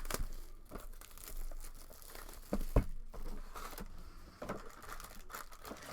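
Plastic wrapping on a trading-card box crinkling and tearing as it is handled and opened, in irregular rustles, with one sharp knock a little under three seconds in.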